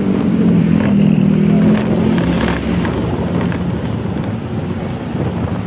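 Intercity bus's diesel engine running hard through a growling ('ngorok') exhaust; the engine note is loudest over the first two seconds, then gives way to a steady rush of road noise.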